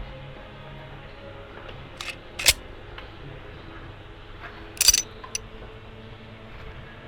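Airsoft gas-gun shots: a few sharp snapping cracks, a single loud one about two and a half seconds in and a short cluster around five seconds, over a steady low background.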